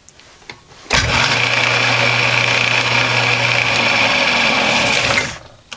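Metal lathe starting up and running with a steady hum and a high whine, its spindle carrying a newly fitted bicycle-type disc brake. About five seconds in it is switched off and the disc caliper brakes it, so it stops quickly.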